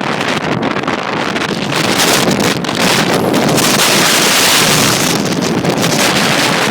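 Strong gusting wind buffeting the microphone, growing louder about two seconds in.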